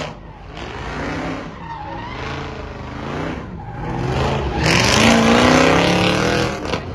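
Jeep Grand Cherokee Trackhawk's supercharged V8 revving up and down as the SUV spins donuts, tyres squealing. About four and a half seconds in, the revs climb and the tyre screech grows loudest for about two seconds, then drops.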